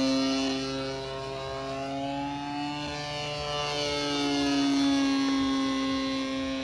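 Radio-controlled aerobatic model airplane flying overhead, its motor and propeller giving a steady buzzing drone. The pitch dips a couple of seconds in and climbs again as the plane manoeuvres, getting louder near the end.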